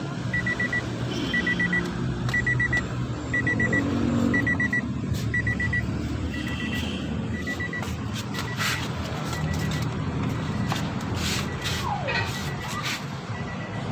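Car's electronic warning chime beeping steadily: one quick train of about four short high beeps every second. From about eight seconds in, scattered clicks and knocks of parts being handled join it.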